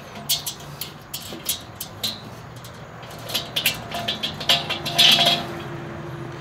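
Small stamped steel wrench clicking and scraping against a nut and washer while the nuts on a Weber kettle's lid-holder rod are tightened: irregular sharp metallic clicks, more frequent in the second half, with a brief scrape near the end.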